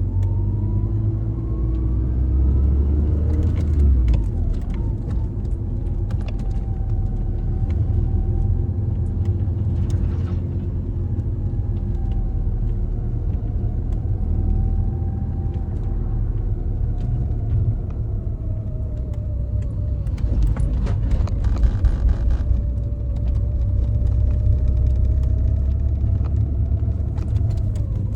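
Lancia Delta HF Integrale Evoluzione I's turbocharged four-cylinder engine and road rumble while driving. The engine pitch rises over the first few seconds and drops about four seconds in, then holds fairly steady with slow rises and falls.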